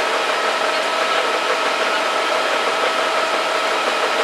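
Fire engine standing with its engine running: a constant, even machine noise with a steady whine over it.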